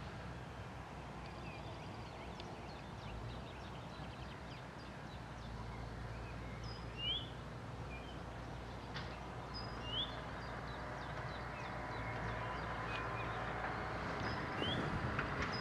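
Wheeled excavator's diesel engine running steadily at low revs. A bird calls over it a few times in short upward-sliding chirps.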